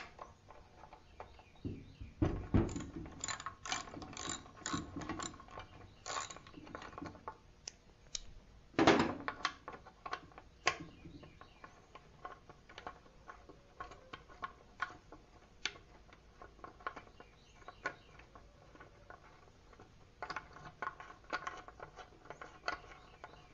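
Socket ratchet clicking in runs of rapid clicks as a half-inch bolt is backed out of a small engine, with one louder metal knock about nine seconds in.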